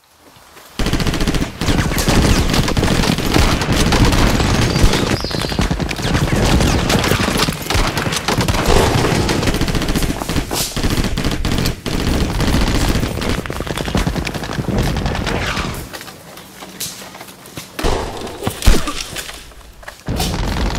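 Heavy, rapid gunfire, many shots overlapping in a continuous volley for about fifteen seconds, then thinning to a few single loud shots near the end.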